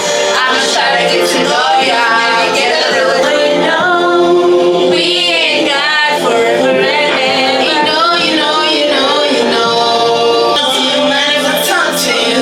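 Background music: a song carried by prominent singing voices, at a steady level throughout.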